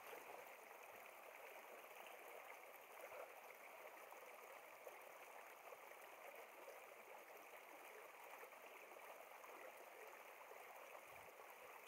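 Faint, steady rush of flowing stream water, with no other distinct sounds.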